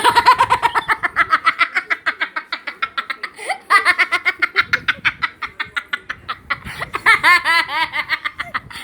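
High-pitched horror-effect laugh in rapid staccato ha-ha pulses, about seven a second, in three runs with short breaks between them.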